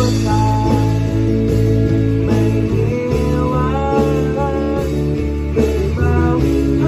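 Rock band playing live: two electric guitars, bass guitar and a drum kit, with a singer's voice over the band.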